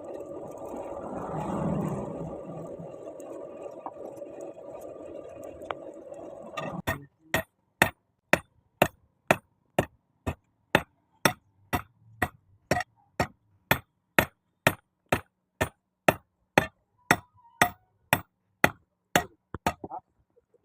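A steady hum and hiss, swelling briefly near two seconds in. From about seven seconds in, it gives way to a regular sharp tapping, about two taps a second, with dead silence between the taps.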